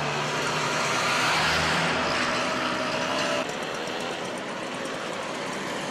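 Motorcycle engine passing close by, loudest about a second and a half in, then dropping away about three and a half seconds in.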